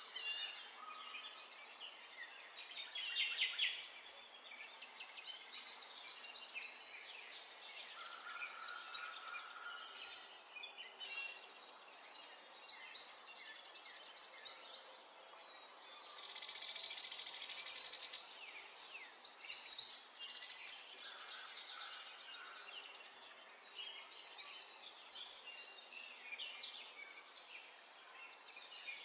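Small songbirds chirping and trilling on and off, in quick rapid runs. A longer, louder trill comes about two-thirds of the way through.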